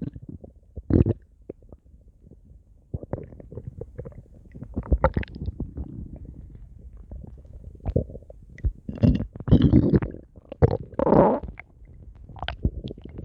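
A human stomach growling and gurgling in irregular bursts, low rumbles broken by short wet gurgles, with the loudest run of gurgles coming in the last third.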